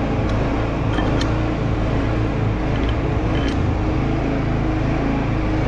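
A steady, low, engine-like mechanical drone, with a few light clicks about a second in and again past the middle as washers and a nut go back onto the crane trolley's bolt.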